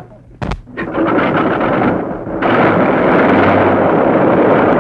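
Radial aircraft engines running with a rough, dense roar, which starts after a sharp bang about half a second in.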